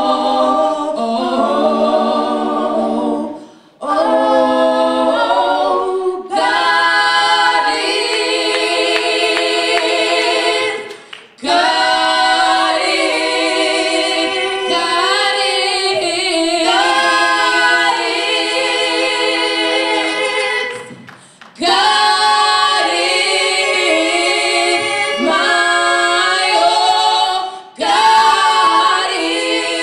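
Female gospel trio singing a cappella in three-part harmony through microphones, with no instruments. Held chords run in long phrases broken by a few brief pauses.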